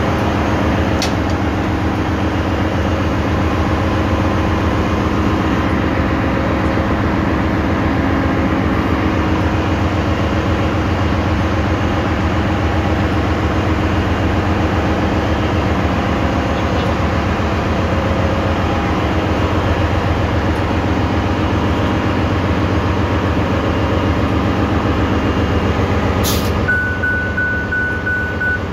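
Loud, steady machinery noise of a ship's engine room. A steady high-pitched beep sounds for about two seconds near the end.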